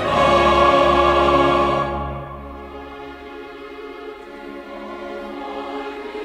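Background choral and orchestral music: a loud held chord that drops away about two seconds in to a quieter sustained passage.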